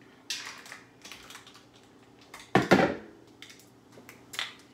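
Kitchen handling sounds as a plastic bag holding raw salmon is handled: short rustles near the start and again near the end. A loud thump comes a little past halfway.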